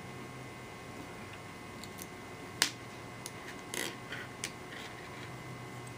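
Hex key turning small steel cap screws out of an aluminium mounting block: light metal ticks and scraping, with one sharp click about two and a half seconds in.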